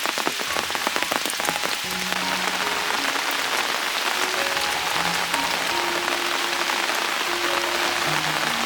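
Heavy rain falling, a dense patter of drops striking surfaces. Soft background music with slow held notes comes in about two seconds in and plays over the rain.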